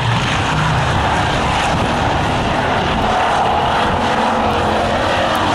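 Hobby stock race cars running laps on an oval track: a loud, steady drone of several engines at speed.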